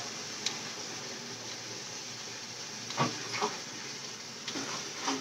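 Steady hiss of tap water running into a large plastic water bottle, with a couple of faint knocks about three seconds in.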